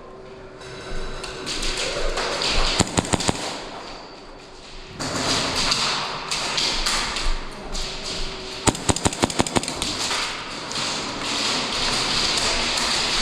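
Airsoft guns firing two short bursts of rapid shots, about nine a second, the second burst about six seconds after the first, over a steady rushing noise.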